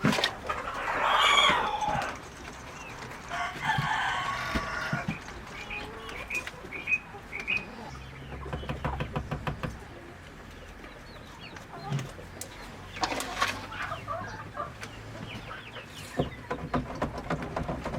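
Free-range chickens clucking and calling, with a rooster crowing twice near the start. A run of sharp ticks comes near the end.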